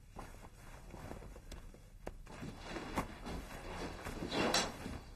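Soft footsteps and rustling as a man climbs out of a nylon dome tent and walks across a room, with a few light knocks and a short swish of fabric about four and a half seconds in.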